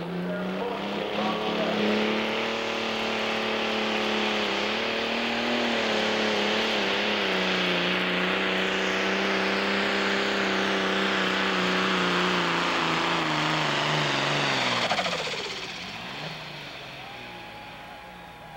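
Pro Stock pulling tractor's turbocharged diesel engine at full throttle hauling the weight sled. Its note climbs in the first two seconds, holds steady with small dips for about fifteen seconds, then drops and fades as the throttle comes off at the end of a full pull.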